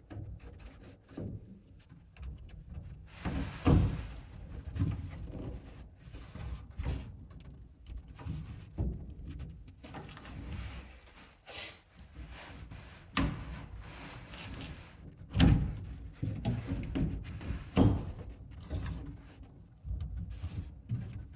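Irregular knocks, bumps and rubbing from handling plastic feed-line pipe and push-fit fittings, with a few louder knocks.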